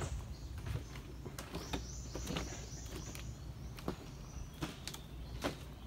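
Footsteps on the wooden planks of a boardwalk: irregular knocks, about one every half second to second.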